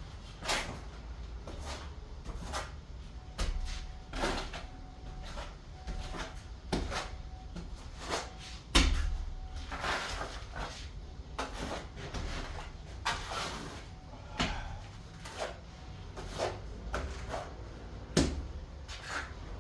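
Irregular knocks, taps and clatters from hands-on tile work with hard materials and tools, about one or two a second, the loudest a sharp knock about nine seconds in.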